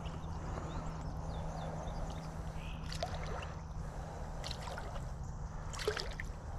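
Steady low rush of flowing river water with a faint steady hum underneath, and a few faint short chirps and clicks scattered through.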